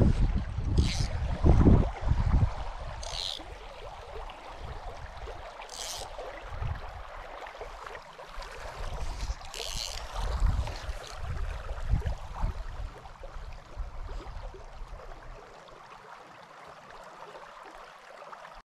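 Wind buffeting the microphone in gusts beside a shallow, fast-flowing river, strongest in the first two seconds and easing off later. About four short, high hissing swishes come at irregular intervals in the first ten seconds.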